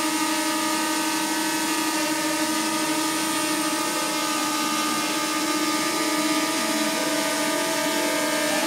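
DJI Mini 2 quadcopter hovering indoors on a test flight after a front-arm repair: a steady propeller whine whose pitch wavers slightly as the motors adjust.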